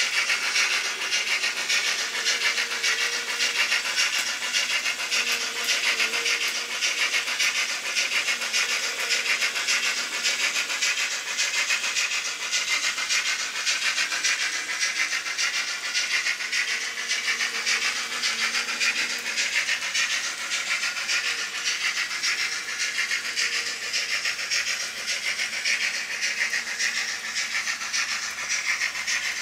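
N-scale model train, an Arnold BR 18 steam locomotive model hauling Rheingold coaches, running along its track with a steady, fast rattle.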